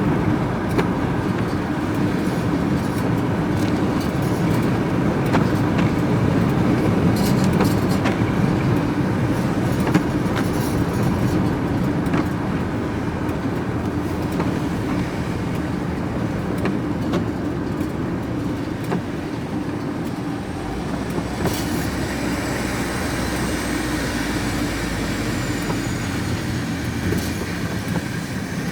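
Inside a moving vehicle's cab: engine and tyre noise running steadily, with scattered light rattles and knocks.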